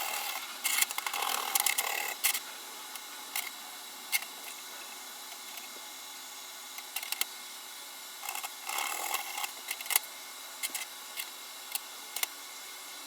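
Scattered sharp clicks and knocks, with two short stretches of denser rattling and scraping, from tools and metal pieces being handled on a workbench.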